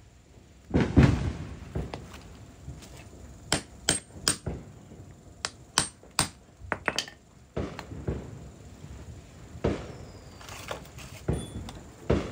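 Hammer strikes and metal-on-metal clinks from work on a sterndrive drive shaft's U-joints. There is a heavier blow about a second in, then a run of sharp, lighter taps and clinks at uneven intervals.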